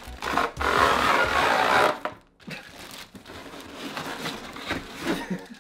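Cardboard packaging sliding and scraping as a cardboard insert is pulled out of a box: a loud rasp lasting about a second and a half, followed by lighter rustling and small knocks of cardboard and plastic wrap.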